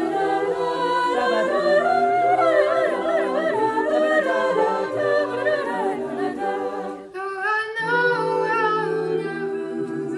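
Mixed-voice high-school choir singing a cappella: wordless, held chords under a moving melody line. The voices thin out briefly about seven seconds in, then a new chord comes in.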